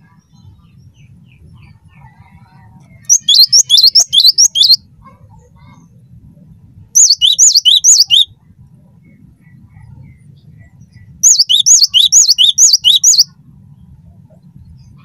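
Gelatik batu (cinereous tit) singing: three high, rapid phrases of the same note repeated several times over, each lasting one and a half to two seconds, a few seconds apart.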